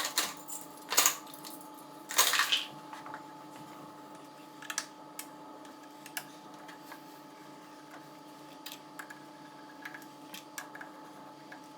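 Metal tools and engine parts clinking and rattling as they are handled, loudest in the first few seconds and then down to occasional single clicks, over a steady low hum.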